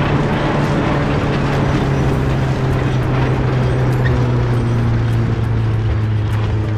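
Tractor diesel engine running steadily under load, pulling a power harrow through dry soil; the engine hum drops slightly in pitch a couple of seconds in.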